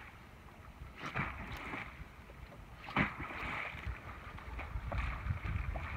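Popping lure being jerked across the sea surface, each jerk giving a short splashing pop, a few seconds apart, the loudest about three seconds in. Wind rumbles on the microphone in the second half.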